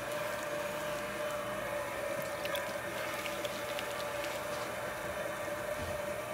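Pottery wheel running with a steady whine while wet clay is worked on it, with a wet squishing and a few faint ticks.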